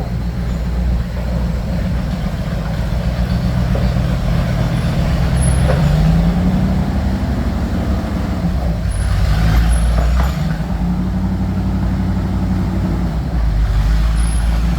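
Engine of a vintage Bombardier wide-gauge snow bus running as the machine is driven slowly. The engine note rises about six seconds in and then eases back, with a few rattles partway through.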